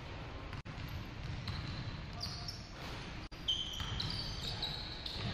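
Pickup basketball on a hardwood gym court: a basketball being dribbled and short, high sneaker squeaks on the floor, over a low rumble from the hall. The sound cuts out for an instant twice.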